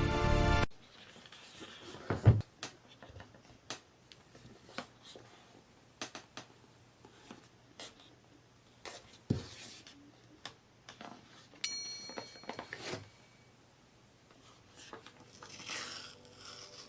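Packaging being handled during a smartphone unboxing: scattered light taps, rubbing and tearing of cardboard and plastic, with two soft thumps and a short ringing ping about midway.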